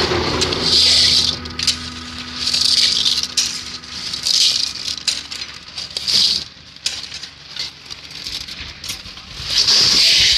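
Crushed stone aggregate tipped into the steel hopper bins of a concrete batching machine, clattering and rattling against the metal in about five bursts of a second or less, over the faint hum of the machine's motor.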